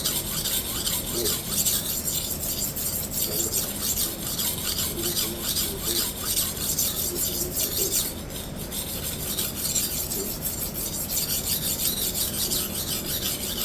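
Hard Japanese steel knife blade scraped back and forth on a coarse silicon carbide sharpening stone under heavy pressure, grinding in a fresh cutting bevel to remove chips. A continuous rasping that eases briefly about eight seconds in.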